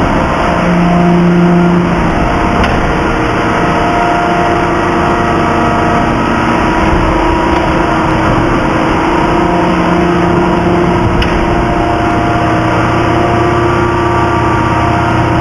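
3150-ton hydraulic free forging press running: a loud, steady machine drone from its hydraulic pumps and motors, with a constant hum and a lower hum that comes in twice, for about a second each time.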